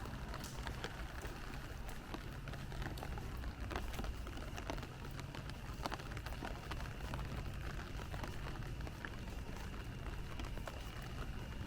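Rain falling on a city street, a steady hiss scattered with the short ticks of individual drops, over a steady low rumble.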